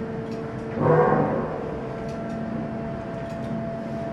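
Heavy hydraulic forging press and forge-shop machinery humming steadily, with a brief louder surge about a second in as the press works the red-hot crankshaft forging.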